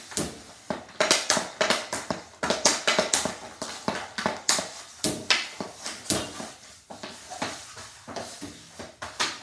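Regular rubber hockey puck being passed again and again with a stick into a bungee triangle passer on synthetic ice. Stick blade and puck make sharp, irregular clacks, several a second.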